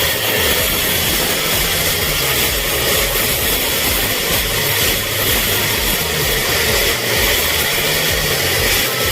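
Mitsubishi L300 van's diesel engine held at high revs, the pitch wavering up and down a little, with a loud exhaust note from the muffler. The engine is being revved hard to burn off heavy black smoke after an oil additive was put in for a failed smoke-belching test.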